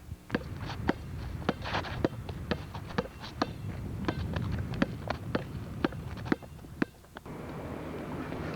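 A steady run of sharp thumps, about two to three a second, over a low rumble. The thumps stop about seven seconds in and a steadier noise follows.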